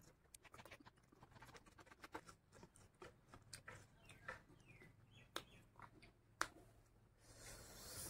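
Faint, scattered soft clicks and smacks of a bare hand mixing rice and curry on a plate and of eating by hand. Two sharper ticks come past the middle, and a short hiss rises near the end.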